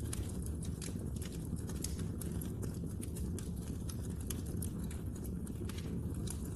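Wood fire burning in a fireplace: a steady low rush of flame with many small, irregular crackles and pops from the burning logs.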